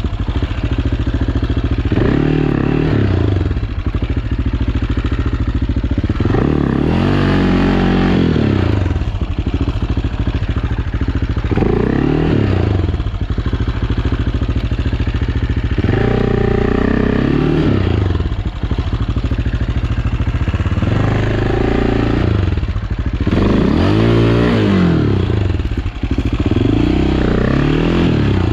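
AJP PR7's single-cylinder engine, ridden off-road, revving up and down over and over, its pitch rising and falling every second or few as the throttle opens and closes, with some clatter.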